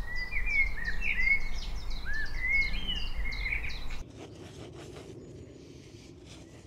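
Songbirds singing a rapid run of chirps and warbling phrases over a low rumble. About four seconds in, the sound drops abruptly to a quieter woodland background with faint clicks and a weaker bird.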